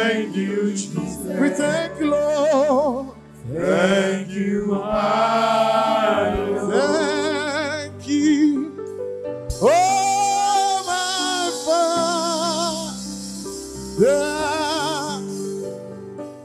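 Gospel choir worship singing: voices holding long notes with vibrato over sustained accompaniment chords, with a brief lull about three seconds in.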